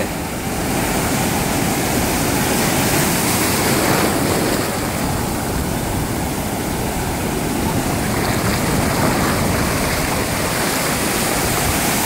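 Heavy sea surf: waves breaking and white water foaming in a continuous rush.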